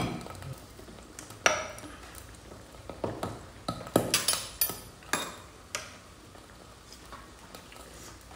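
Sharp clinks and taps of glass and tableware: the lid of a glass chili-oil jar being handled and a spoon scraping and knocking inside the jar. The clinks come singly at first, bunch together about three to five seconds in, then die down.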